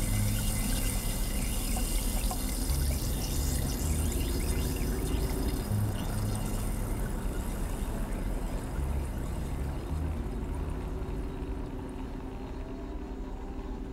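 Water pouring and trickling, growing quieter over the last few seconds.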